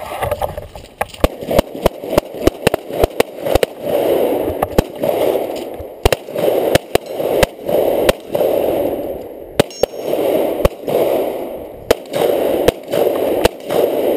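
A rapid, irregular string of pistol shots from two shooters firing side by side, many shots close together or overlapping. Under them runs a rushing noise that swells and fades.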